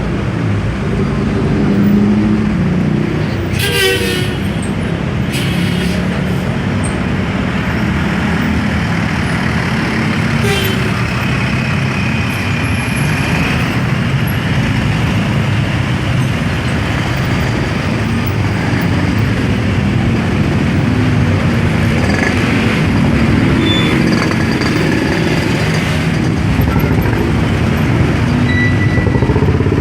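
Dense city road traffic: car and motorcycle engines running steadily together. Short sharp hisses come through about four, five and a half and ten seconds in, and a high horn-like tone sounds briefly around ten to thirteen seconds in.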